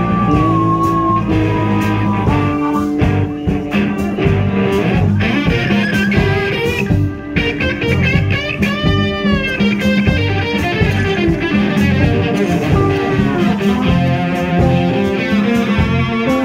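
Live blues-rock band playing: an electric guitar lead bending notes up and down over strummed guitars, bass and drums.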